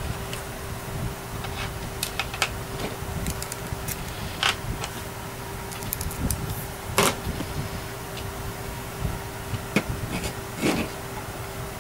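Scattered light clicks and knocks of small RC helicopter parts being handled and fitted back together, a few seconds apart, over a steady background hum.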